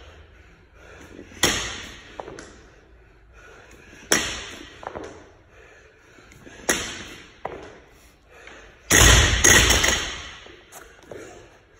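A barbell loaded with 10 kg rubber bumper plates hits the rubber gym floor once per rep, three times about two and a half seconds apart. About nine seconds in it lands with a louder, heavier crash and bounces a few times.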